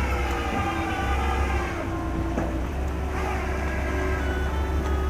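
Engine running steadily, its pitch dipping and then rising again around two to three seconds in, over a low rumble of wind on the microphone.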